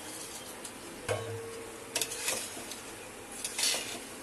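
Soaked rice tipped from a steel plate into a steel cooking pot, the plate knocking the pot with a brief metallic ring about a second in, then a spoon clattering and scraping as the rice is stirred into the chicken masala, over a faint sizzle.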